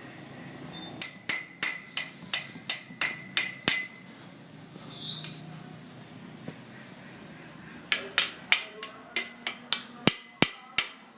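A small hard object struck over and over, about three sharp knocks a second, each with a short bright ring. They come in two runs of about nine or ten, the first near the start and the second near the end, with a pause between.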